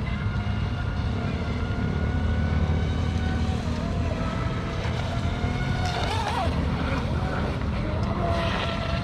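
Brushless electric motor of a Tenshock-powered F1 RC speedboat running: a steady high whine that wavers in pitch about six seconds in, over a steady low rumble.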